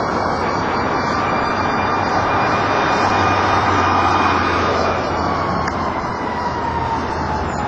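Busy road traffic with a car passing close by, and a fire engine's siren heard faintly as one slowly falling tone.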